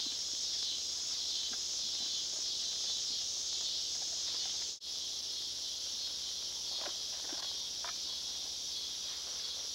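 Steady high-pitched hiss of an insect chorus in the woods, with faint rustles of footsteps through brush. The sound cuts out for an instant about five seconds in.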